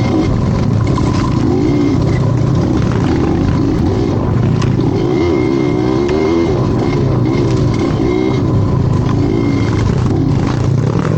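Vehicle engine running continuously at close range, its pitch rising and falling as the throttle is worked, over a steady rumble.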